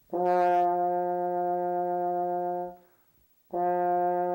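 Trombone playing a long, steady beginner's tone, the player buzzing his lips with the corners held firm. The note stops a little before three seconds in, and the same pitch starts again half a second later and is held.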